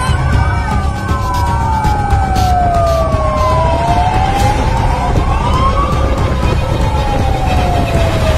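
Fire truck sirens wailing, rising and falling slowly every few seconds, with a second siren overlapping the first, over a heavy low rumble from the moving truck.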